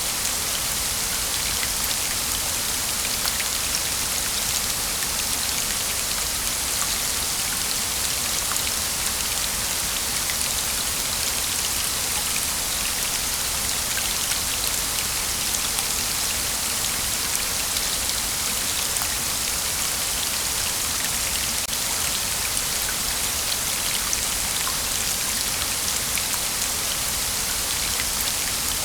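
Waterfall: falling water splashing in a steady, dense hiss, with many small droplet splashes through it.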